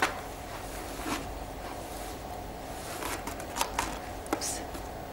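A comb drawn through long hair: a few short rasping strokes, one at the start, one about a second in and several bunched together about three to four and a half seconds in, over a faint steady hum.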